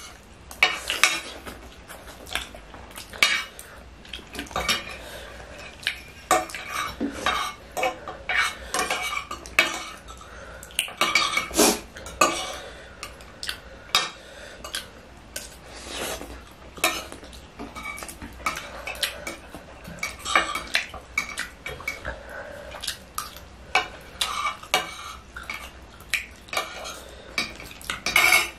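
Metal forks and spoons clinking and scraping against a table top as two people scoop and twirl noodles, in irregular sharp clicks throughout.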